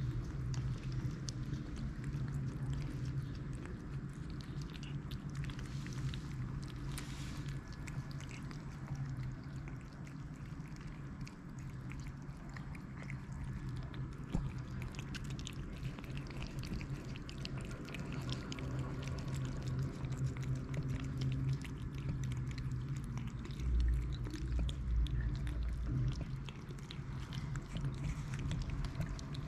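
Several cats and kittens eating wet food together from a tray and bowl: a constant patter of small wet chewing and lapping clicks over a steady low hum, with a low thump about three-quarters of the way through.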